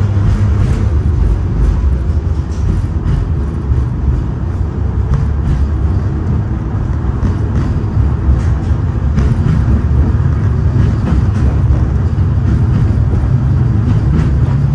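LVS-86K (71-86K) tram running along the track, heard from inside the car: a steady low rumble of wheels on rails and running gear.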